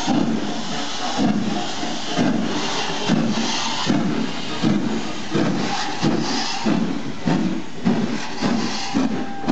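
LMS Princess Royal class four-cylinder steam locomotive 6201 Princess Elizabeth pulling away, its exhaust beats quickening from about one a second to about two a second as it gathers speed. Steam hisses from the open cylinder drain cocks under the beats.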